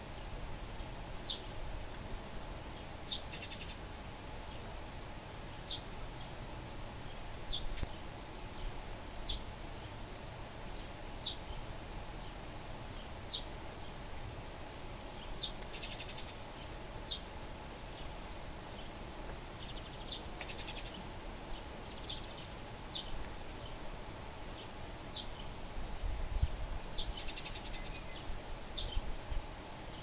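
Eurasian tree sparrows giving short high chirps every second or two, with a few brief chattering rattles mixed in.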